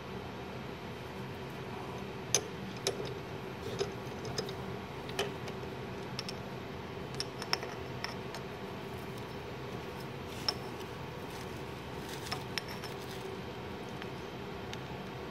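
Light metallic clinks and taps, about a dozen scattered irregularly, as a machined metal model brake drum is freed from a lathe's three-jaw chuck and lifted out by a gloved hand. A steady machine hum runs underneath.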